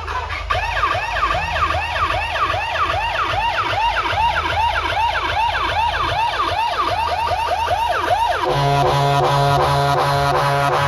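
Electronic siren effect blasting from a DJ sound system during a sound check, a fast rising-and-falling wail about three or four times a second over a bass beat; near the end it cuts off and the music with heavy bass comes back in.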